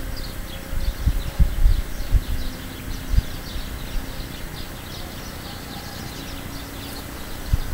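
Small birds chirping continuously in short repeated notes, with several low thumps in the first few seconds.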